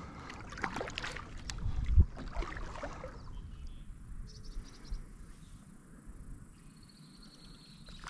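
Kayak paddle strokes dipping and splashing in calm water, with a thump about two seconds in. After about three seconds it quietens to faint water sounds.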